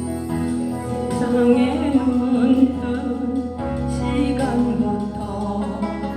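Instrumental introduction of a Korean ballad-style backing track: sustained chords and bass under a lead melody line with vibrato.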